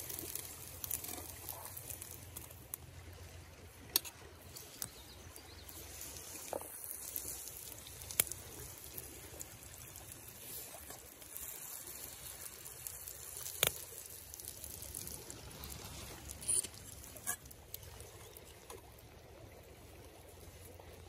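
A bun frying in oil in a pan over a small wood fire, sizzling steadily, over the rush of a flowing river. About five sharp clicks and ticks stand out, the loudest near the middle.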